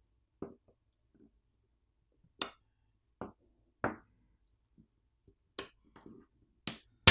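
Sharp, irregular clicks and taps, about seven of them, as tools and fingers work on the plastic internal parts of an opened smartphone. The loudest comes right at the end.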